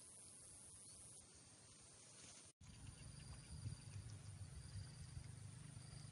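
Faint rural pondside ambience: a steady high-pitched insect hum with faint intermittent chirping. The sound drops out for an instant about two and a half seconds in, and a low rumble comes in underneath after that.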